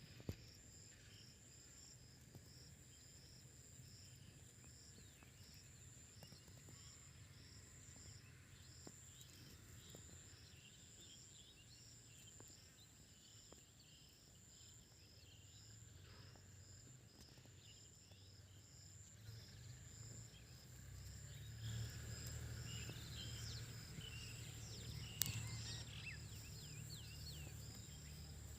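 Faint outdoor ambience of insects: a steady high thin trill with a second insect pulsing about twice a second. In the second half short chirps come in and a low rumble grows louder, with one sharp click near the end.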